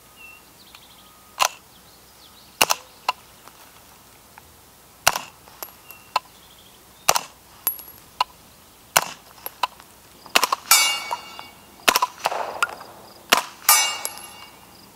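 Integrally suppressed 9mm carbine firing a string of single shots, one every second or so: sharp, suppressed cracks. Twice near the end a shot is followed by a brief metallic ringing.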